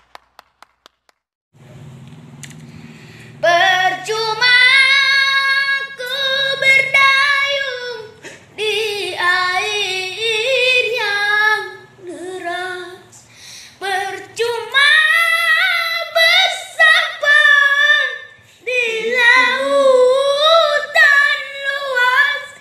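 A boy singing a slow ballad alone, without accompaniment, in a high voice with long held and sliding notes. It opens with a run of quick hand claps that fade out in the first second and a half.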